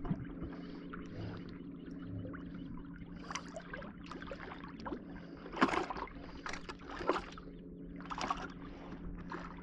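Water sloshing and splashing at a fishing boat, with a few sharper splashes or knocks, the loudest about halfway through, over a steady low hum.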